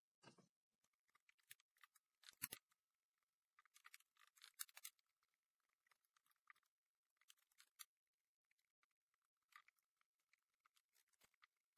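Faint, scattered clicks and scratches of component leads being pushed into a solderless breadboard and fingers on the board, with one sharper click about two and a half seconds in.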